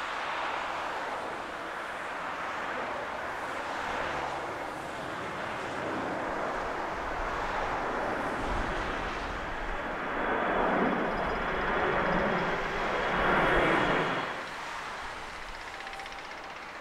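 Jet engines of a twin-engine airliner climbing out just after takeoff: a steady jet noise that grows louder, is loudest a few seconds before the end, then drops away suddenly.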